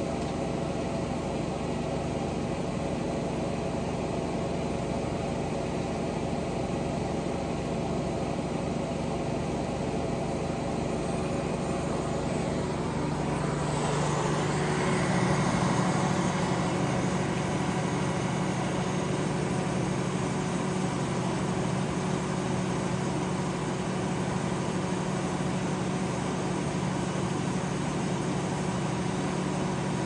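Sawmill engine running steadily. About halfway through, a rougher, hissing noise comes in and stays alongside it.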